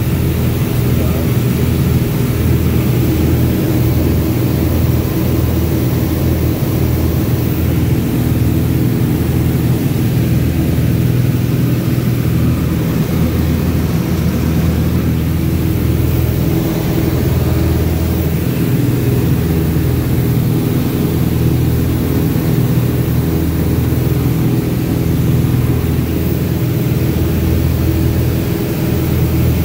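Steady, even-pitched drone of a twin-engine propeller airplane's engines and propellers in cruise, heard from inside the cabin.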